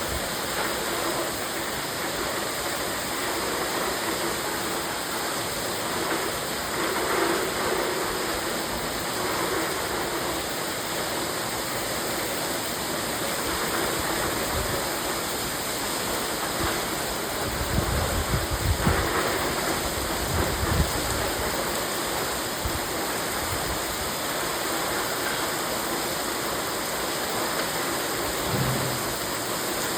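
Rainwater pouring steadily from a broken rain gutter in heavy rain, a constant rushing splash. A few low bumps come about two-thirds of the way through.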